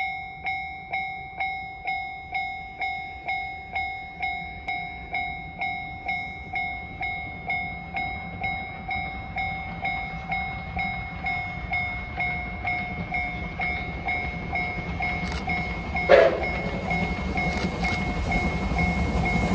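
Japanese railway level-crossing alarm ringing a steady two-tone clang, a little over two strikes a second. Over the last few seconds the rumble of an approaching train grows louder, with one short, sharp, louder sound about 16 seconds in.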